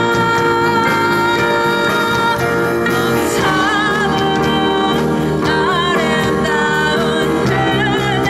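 Live band performance: a woman sings held, wavering notes into a microphone over electric guitars, drums and keyboard, with regular cymbal hits keeping the beat.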